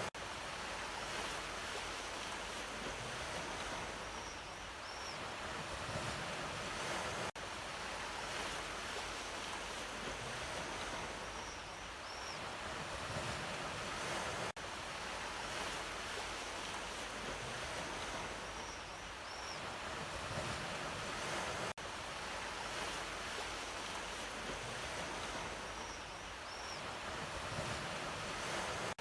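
Ocean surf washing steadily. It is a short recording looped about every seven seconds, with a brief drop in level at each seam and a faint high double chirp recurring once in every loop.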